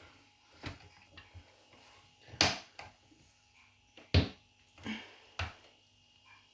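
A handful of scattered knocks and clicks from things being handled. There is a short scraping rustle about two and a half seconds in, and the sharpest, loudest knock comes about four seconds in.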